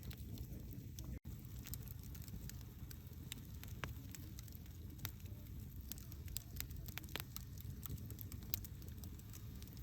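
Wood fire burning: irregular sharp crackles and pops of burning logs over a steady low rumble of the flames, with a split-second gap in the sound about a second in.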